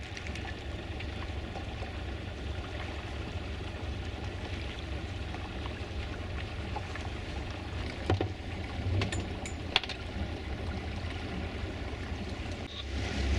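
A sailboat's engine running slowly, a steady low hum under wind and water noise, with a few light knocks about eight to ten seconds in.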